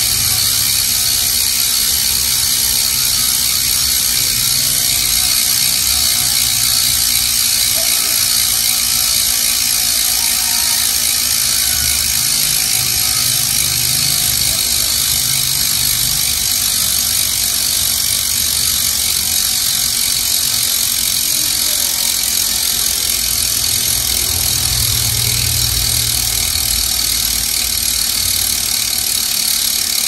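Quanta three-pawl rear fat-bike hub freewheeling as the spun rear wheel coasts, its pawls clicking too fast to count and blending into a steady ratcheting buzz.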